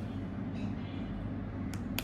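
Two short sharp clicks near the end as a mechanical keyboard switch is pressed back into its hot-swap socket. A steady low hum runs underneath.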